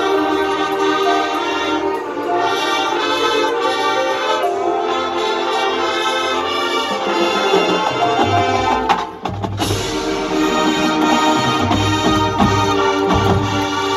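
High school marching band playing: brass and percussion, with deep drum hits setting in after about eight seconds and a brief drop about nine seconds in.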